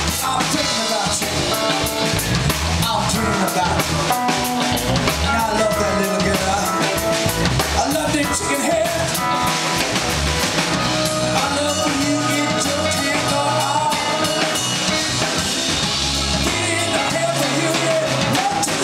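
Live band playing a New Orleans–style funk groove on drum kit, electric guitars, bass and keyboards, with a lead line that bends in pitch over a steady beat.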